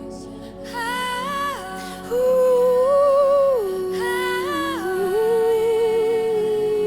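Wordless worship singing, a voice humming or vocalising a slow melody with long held notes and vibrato, over a steady sustained keyboard pad.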